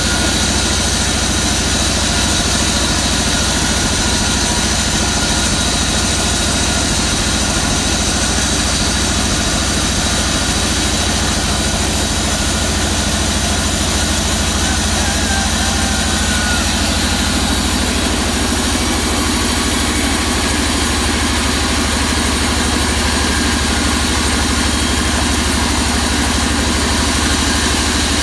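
Vertical band sawmill running with a steady mechanical drone while a waru log is fed through the blade.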